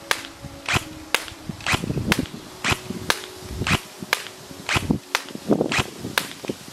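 ARES AR308M airsoft electric gun with its V2 EFCS gearbox firing single shots in semi-automatic, a string of sharp cracks at about two shots a second.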